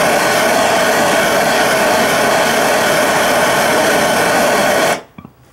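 A hand-held gas torch burning with a steady rushing noise, its flame heating the bushing in a 1996 Lincoln Town Car front control arm. The torch is shut off near the end and the noise stops suddenly.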